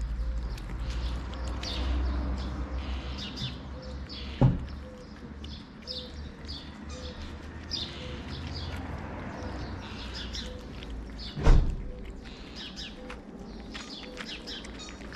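Small birds chirping again and again, with two sharp thumps, one about a third of the way in and a louder one about three quarters through.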